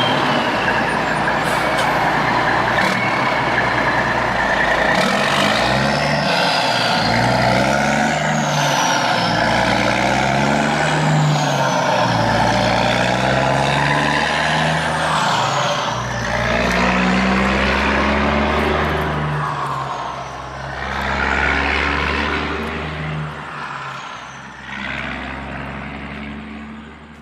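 Radio-controlled model truck running, with a low engine-like note that rises and falls in pitch again and again. It fades away near the end.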